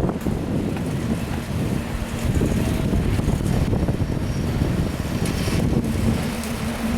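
Heavy construction machinery running with a steady low rumble, a faint held tone coming in twice over it.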